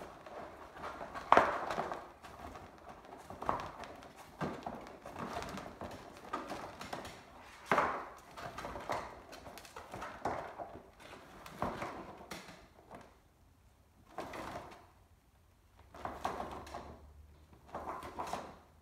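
Lacing being drawn through the holes of a fiberglass lamp-shade panel and around its wire ring, with the stiff panel rustling and flexing in the hands. It comes as a string of short, irregular pulls and rustles, with sharp knocks about a second in and near eight seconds.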